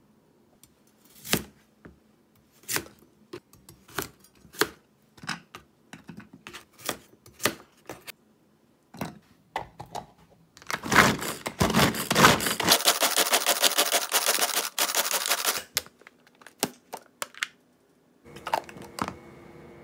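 Knife knocking on a plastic cutting board as a carrot is cut into chunks, a knock every half-second to a second, then about five seconds of a pull-cord food chopper (Bun Bun Chopper) being yanked repeatedly, its spinning blades rattling carrot pieces around the plastic bowl. Near the end a faint steady hum begins.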